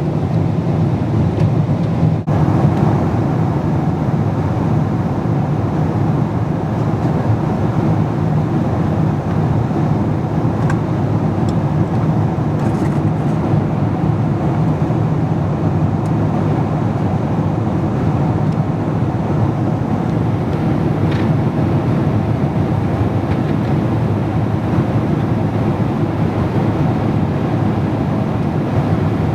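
Jet airliner cabin noise: a steady, even rumble of the engines and airflow heard from inside the passenger cabin.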